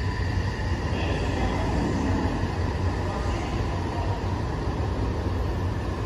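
Odakyu Line commuter train pulling out of the station and running off along the platform, a steady low rumble of wheels and motors.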